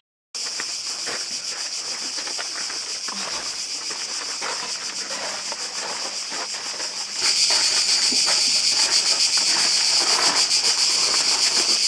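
Cicadas singing in a steady, high-pitched chorus that gets louder about seven seconds in, with faint scattered knocks and scuffs underneath.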